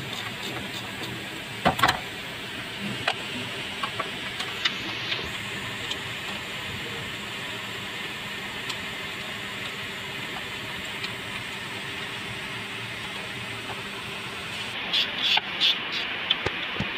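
Scattered sharp clicks and taps of hands and a screwdriver working on parts in a car's engine bay, the loudest a pair about two seconds in and a quick cluster near the end, over a steady hiss.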